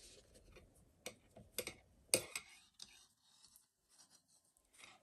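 Faint handling sounds of crocheting: a crochet hook working through yarn. There are short scratchy strokes about a second in, again a moment later and a louder one about two seconds in, then faint scattered ticks.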